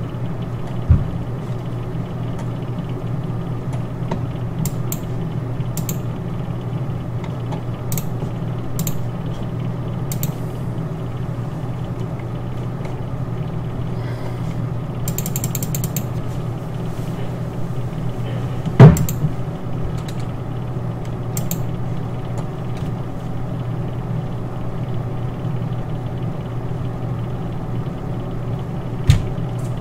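Steady low hum with scattered light clicks, as from a computer mouse, and a louder knock about 19 seconds in and again near the end.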